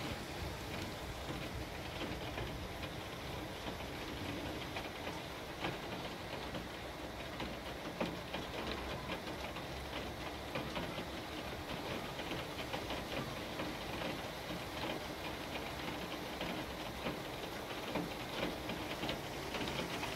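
Heavy rain pouring down steadily, with a dense crackle of individual drops hitting close by.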